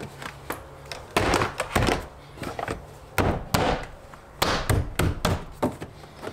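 Hand blows knocking a BMW E90 door trim panel onto the door, a series of dull thunks at an uneven pace as its metal push clips are driven into place.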